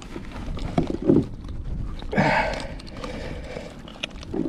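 Knocks and scrapes of a big snapper being handled and dispatched aboard a kayak: a few short thumps, the loudest about a second in, and a scraping rustle about two seconds in, over a steady low rumble.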